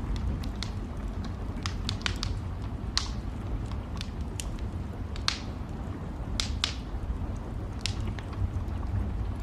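Wood fire in a fireplace crackling, with scattered small pops and a few louder, sharper snaps, over a steady low rumble.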